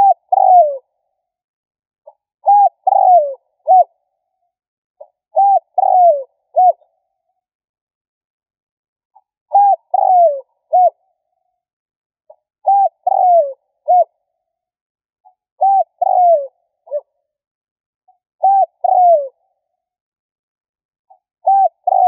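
Spotted dove cooing its song. Each phrase is a short coo, a longer falling croo and a short final coo, and the phrase repeats about every three seconds.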